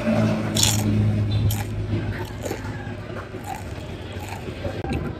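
Crisp kangkong (water spinach) chips being bitten and chewed, with several sharp crunches at uneven intervals. A low steady hum sounds under the first second or so and then fades.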